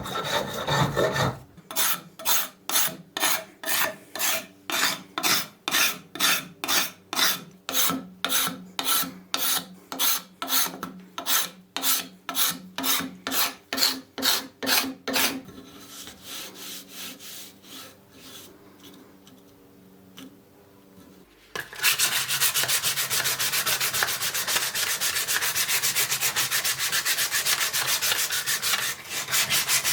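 Hand abrasive strokes on wood, rubbing back and forth at an even pace of about two strokes a second. The strokes then go quiet for several seconds, and resume as a fast, continuous run of short strokes.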